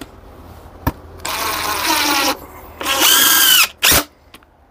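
Cordless drill/driver driving screws through a wooden board into the carving's wood. It runs twice, about a second each time, one run per screw, and there is a sharp knock near the end.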